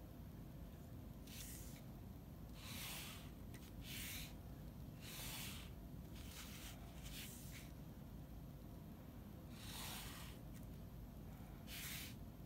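Pen drawing straight lines on paper along a steel ruler: about eight faint scratchy strokes, each roughly half a second long, with short pauses between them.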